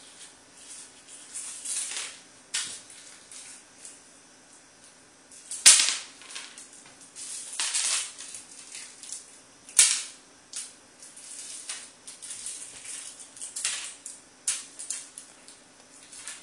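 A wrapped mint batted and skidded across a hard floor by a cat: scattered crinkles of the plastic wrapper and light scraping taps, with two much louder sharp clacks about six and ten seconds in.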